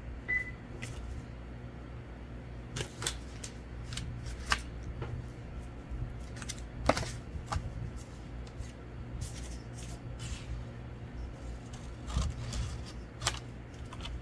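Cardstock and paper being handled: scattered soft rustles, taps and clicks as a handmade card is slid across and set down on a woven cloth, over a low steady hum.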